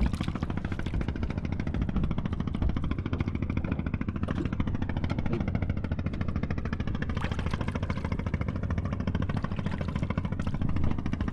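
Small wooden fishing boat's engine running steadily, with a rapid, even chugging.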